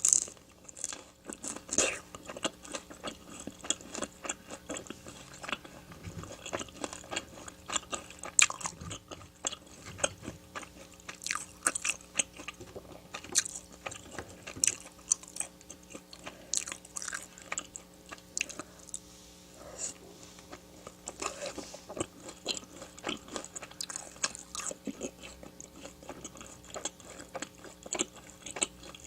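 Close-miked chewing and biting of crispy fried food, with many sharp, irregular crunches.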